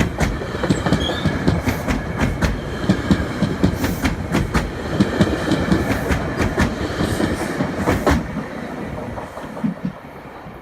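GO Transit commuter train rolling past, its wheels clicking rhythmically over the rail joints with a steady rumble; the clatter drops away sharply about eight seconds in and only a fainter rumble is left.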